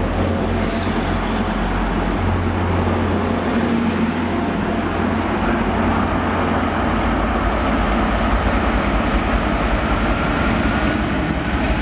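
Diesel trains running through a station: a loud, steady low engine drone and rumble from a Class 175 diesel multiple unit and an approaching freight locomotive, with a faint rising whine near the end.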